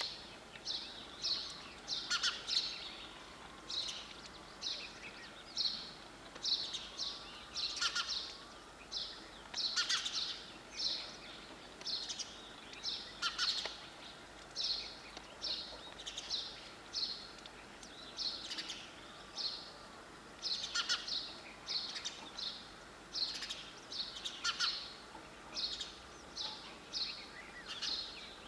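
Sparrow chirping: short, high cheeps repeated about twice a second, on and on without a break.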